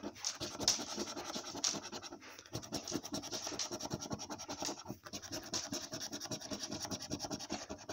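A coin scraping the scratch-off coating from a paper lottery scratchcard in rapid back-and-forth strokes, with short breaks about two seconds in and again around five seconds.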